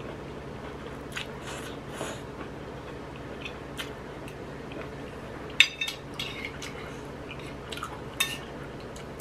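Eating at a plate: noodles slurped and chewed, with metal chopsticks and a spoon clicking and scraping against the plate in short separate strokes. The sharpest click comes about five and a half seconds in.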